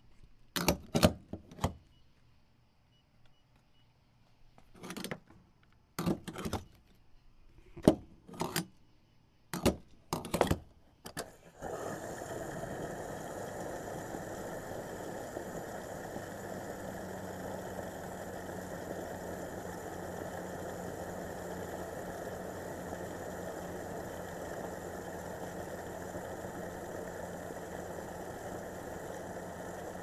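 Car being refuelled with gasoline: a run of sharp clicks and clunks as the fuel cap and pump nozzle are handled, then, a little under halfway through, the steady rush and hum of the fuel pump dispensing petrol into the tank.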